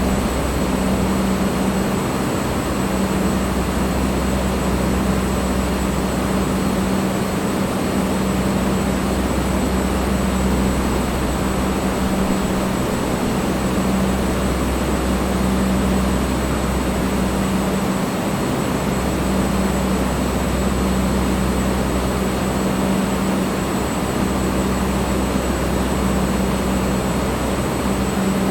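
Electric fan running steadily: an even rushing whoosh of air with a steady low hum underneath.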